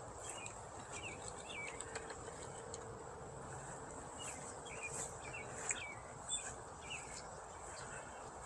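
Wild birds singing, a scatter of short chirps and twittering calls throughout, over a steady high-pitched drone.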